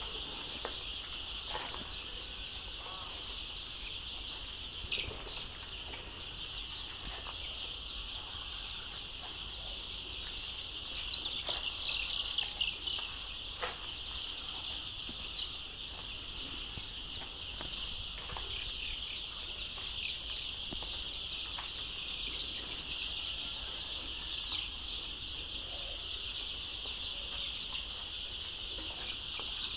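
A large flock of young layer chicks peeping all at once in a continuous high-pitched chorus, with a few louder single cheeps standing out about a third of the way in.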